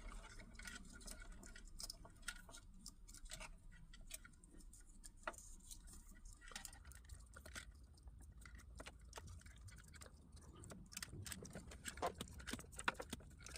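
Faint, irregular small clicks and taps, coming more often near the end: a test probe and fingers working at the pins of a wiring connector.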